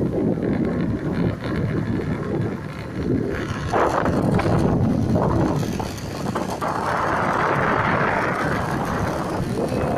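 Wind buffeting the microphone over the low rumble of a moving vehicle, with louder gusts in the second half.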